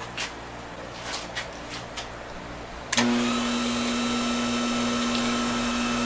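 A few light handling clicks, then, about halfway through, a metal lathe starts up and its motor and spindle run with a steady hum.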